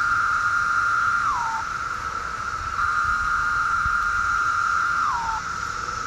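Chorus of 17-year periodical cicadas: a loud, steady, high buzzing drone. On top, a nearer male holds a louder call that slurs down in pitch about a second and a half in, then starts another near three seconds that holds for about two and a half seconds before slurring down again.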